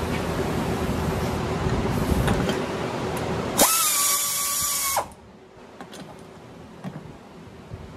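Pneumatic air ratchet spinning a fitting off an old oil filter housing: about three and a half seconds in it runs with a steady high whine and air hiss for about a second and a half, then stops abruptly. Before it, a steady background hiss.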